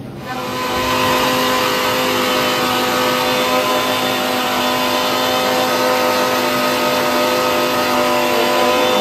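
Electric mixer grinder running at a steady speed, grinding mint and coriander chutney. It comes up to speed about a quarter second in and then holds one steady whine.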